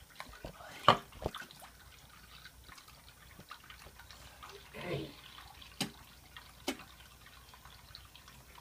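Liquid dripping and being spat into a bathroom sink: a few separate sharp drips and splats, the loudest about a second in, with a short falling sound near the middle.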